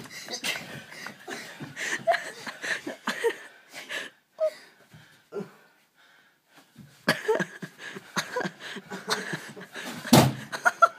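Play-wrestling on a bed: scattered thuds, slaps and rustling of bedding, with laughter and heavy, wheezy breathing. It drops almost to silence for a couple of seconds in the middle, and a heavy thump lands near the end.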